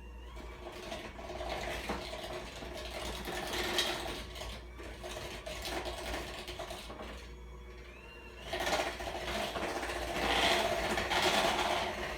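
Electric mixer beating cake batter in a bowl: a steady motor hum with churning and scraping. It dips briefly about seven seconds in, then runs louder.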